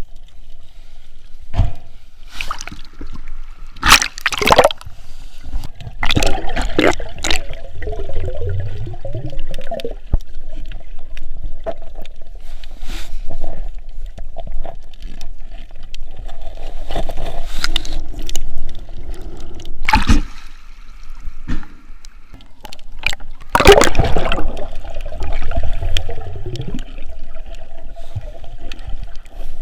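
Sea water sloshing and gurgling around a snorkeler, with several loud rushes of bubbles or splashing.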